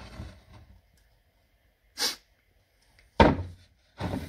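A hand handling a near-full metal tin of Dinitrol underbody coating on a shelf: a shuffling rustle, a brief hiss about two seconds in, then a loud, heavy thunk a little after three seconds in as the tin is lifted and knocked against the shelf.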